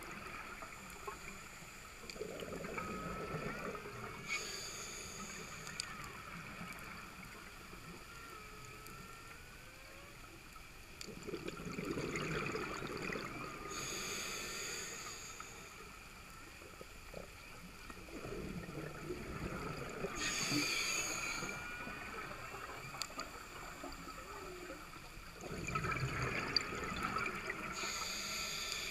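Scuba diver breathing through a regulator underwater: each breath gives a short hiss on the inhale and a longer burst of bubbling on the exhale. There are about four breaths, roughly one every seven seconds.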